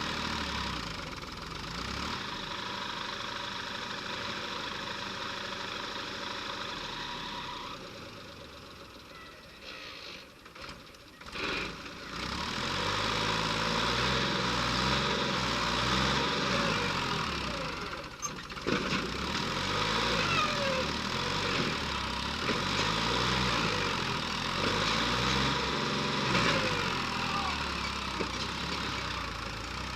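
Backhoe loader's diesel engine running steadily. After a brief dip it comes back louder, its pitch rising and falling again and again as it is revved up and down.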